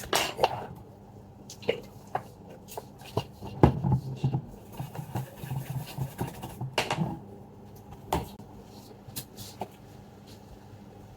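Small sharp clicks and scraping of hand tools working on a laptop motherboard while a corroded spot and broken trace are cleaned, with a low hum in the middle stretch.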